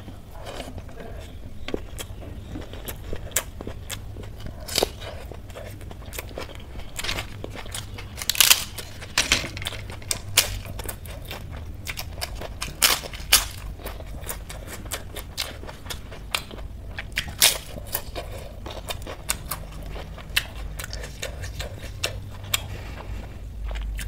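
Close-miked eating: chewing with irregular sharp crackles and crunches as crisp papad is bitten and chewed along with rice.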